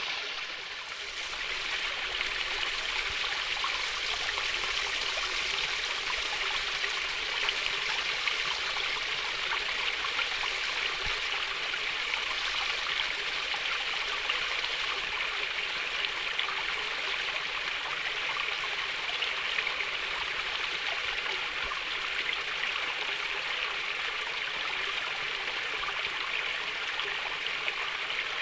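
Calm running water trickling and babbling steadily over stones, like a small stream.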